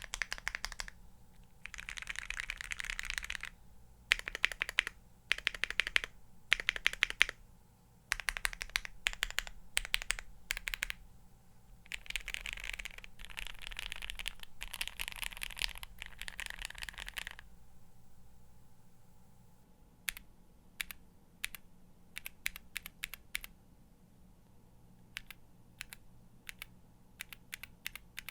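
Mechanical keyboard with Gateron Mini linear switches, lubed and filmed, typed on in bursts and quick runs of keystrokes. About two-thirds of the way in the typing stops, and only separate, quieter single key presses follow.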